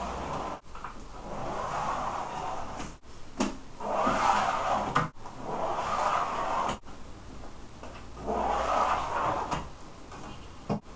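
A coloured pencil scratching along a wooden straightedge across a dark panel, in about four long strokes of a second or two each. The sound cuts off sharply between strokes.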